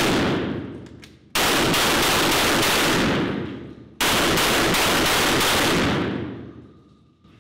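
IWI Tavor TS12 12-gauge semi-automatic bullpup shotgun fired in quick strings of about three shots a second. A string is just ending as the clip opens, and two more begin about a second and a half and about four seconds in. Each string dies away in a long echo.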